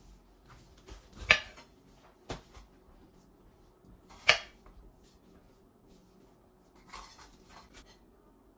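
Chef's knife slicing a red bell pepper, the blade knocking on a slatted bamboo cutting board. Two loud knocks about three seconds apart with a lighter one between, then a run of softer cuts near the end.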